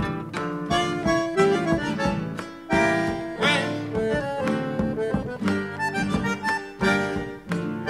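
Instrumental background music with a steady beat and a melody moving from note to note.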